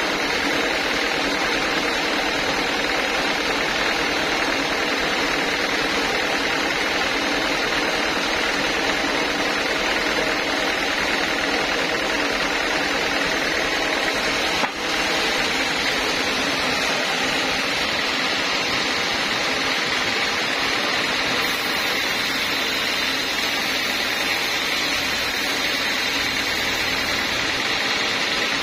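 Homemade band sawmill running steadily and sawing a teak log, a continuous even machine noise with a brief dropout about halfway through.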